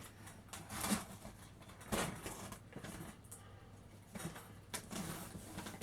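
Faint handling noises from a cardboard shipping box being readied for opening: a few light knocks and clicks with soft rustling between them.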